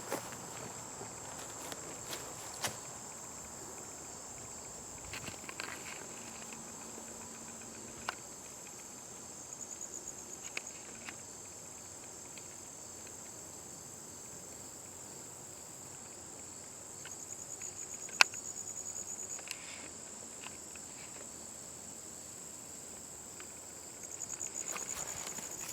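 Steady high-pitched insect trilling, with a few faint scattered clicks and one sharp tap about eighteen seconds in.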